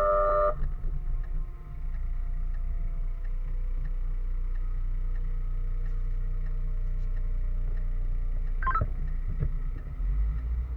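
Fire engine on the move, heard from inside the cab: a steady low engine and road rumble. A short tone sounds right at the start and another brief tone near the end.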